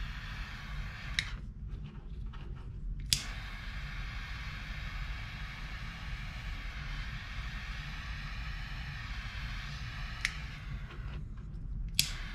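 A small handheld torch's flame hisses steadily as it heats shrink tubing over crimped wire connectors. Twice the hiss cuts out for a second or two and comes back with a sharp click as the torch is relit.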